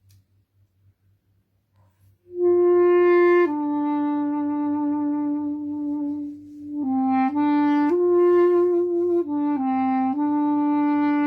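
A wind instrument playing a slow melody of long held notes that step up and down, starting about two seconds in after a near-quiet opening.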